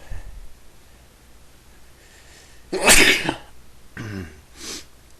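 A person sneezing once, loudly, after a short indrawn breath, followed by two shorter breathy sounds.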